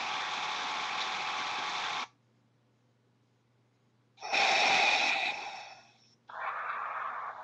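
Self-made ringtone sound clips played back one after another: a steady noisy sound cuts off about two seconds in, then after a pause a sudden loud sound that fades out, followed by a second, quieter one.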